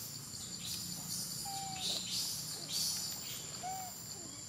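Forest ambience: a steady high-pitched insect drone, with two short bird whistles and soft rustling bursts in dry leaf litter about once a second.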